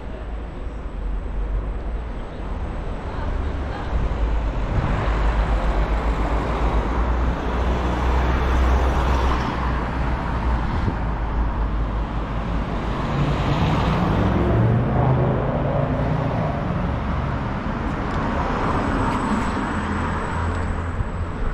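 Wind rushing over the microphone and tyre rumble from a scooter riding along an asphalt street, getting louder about four seconds in, with car traffic on the road just ahead.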